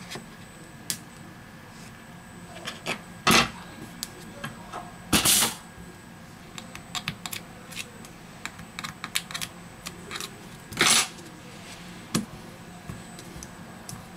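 Scattered light clicks and taps of metal tweezers working on a smartphone's open chassis, with three louder short scraping noises about 3, 5 and 11 seconds in.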